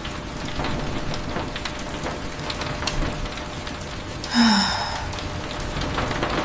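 Steady rain with scattered drop ticks. About four and a half seconds in, a brief, louder pitched sound cuts through.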